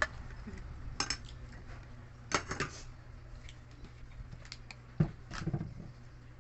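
Eating utensils clinking and scraping on a plate in a few separate clicks, some in quick clusters, over a steady low hum.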